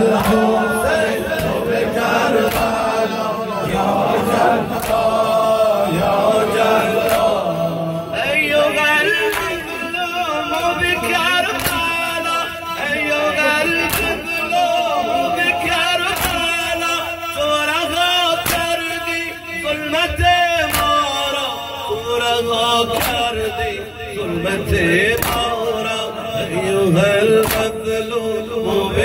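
A male reciter chanting a Shia mourning lament (noha) through a microphone, with a crowd of men chanting along, over a steady beat of open hands slapping bare chests in ritual chest-beating (sineh-zani).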